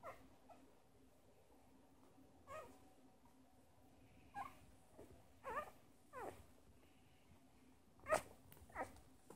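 Newborn Shiba Inu puppy squeaking while nursing: about seven short, high squeaks, each sliding down in pitch, spaced a second or two apart, the loudest about eight seconds in.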